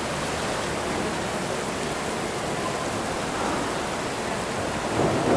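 Steady rushing background noise of a large indoor diving pool hall, even and without distinct events, of the kind made by air handling through big overhead ducts and circulating pool water.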